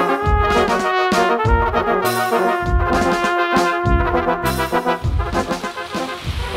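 Background music: a brass-led tune over a bass beat.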